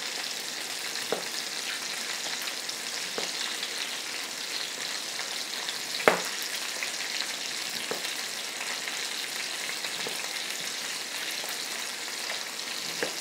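Chicken thighs browning skin side down in butter and oil in an electric frying pan, sizzling steadily. A few knife taps on a plastic cutting board sound as a peeled lemon is sliced thin, the loudest about six seconds in.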